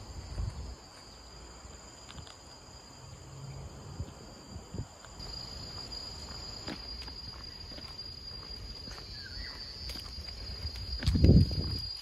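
Insects chirring in a steady, high, even drone, over a low rumble. A loud low thump comes near the end.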